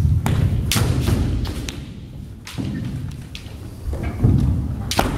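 Kendo sparring: bamboo shinai clacking sharply against each other and against the armour, mixed with bare feet stamping heavily on the wooden dojo floor. About ten sharp knocks come at irregular spacing, over low thuds.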